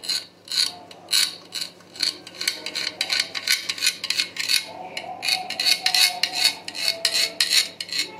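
Kitchen knife slicing carrot strips into pieces on a cutting board: a series of sharp knocks of the blade on the board, irregular at first, then faster and more even at about three a second.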